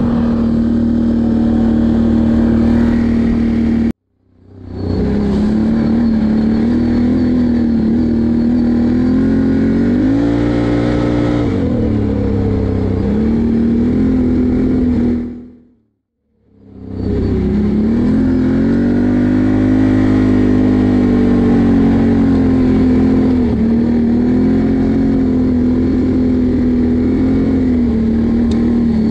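Can-Am Renegade 1000 XMR ATV's V-twin engine running steadily under way, its pitch rising and settling a few times as the throttle changes. The sound cuts to silence twice, once about four seconds in and again just past the middle, and fades back in after each.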